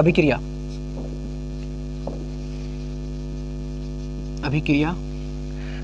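Steady electrical mains hum, a low buzz with many even overtones, constant throughout. A few spoken words break in at the start and once near the end.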